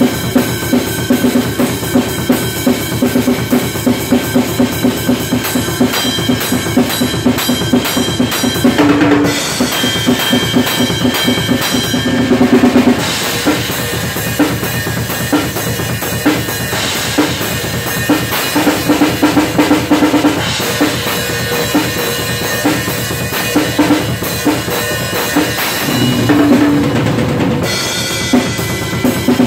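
Acoustic drum kit played hard: a steady groove of bass drum and snare under a Paiste RUDE cymbal being ridden, broken by quick tom fills about nine seconds in, at about twelve seconds, and again near the end.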